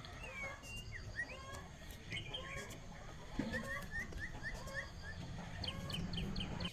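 Chicks peeping: many short, high chirps and little sliding cheeps, with a quick run of rapid peeps near the end, over a low steady hum.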